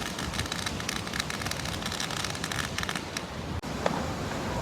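Fireworks crackling: a fast, dense patter of small pops, like rain, which thins out after about three seconds.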